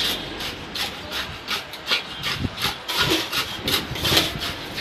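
Steel tamping rod stabbing repeatedly into fresh concrete in a steel slump cone, with gritty scraping strokes about three a second. This is the rodding that compacts each layer of the slump test.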